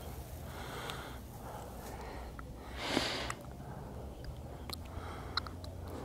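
A person breathing and sniffing close to the microphone, with one sharp, louder sniff about three seconds in and a few small clicks near the end.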